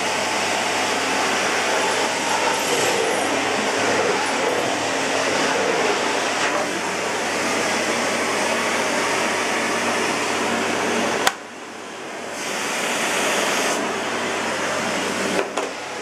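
Lux Intelligence canister vacuum cleaner running steadily at high power with a loud, even rush of air. About two-thirds of the way through there is a sharp click, and the sound dips for about a second before coming back up; a smaller click follows near the end.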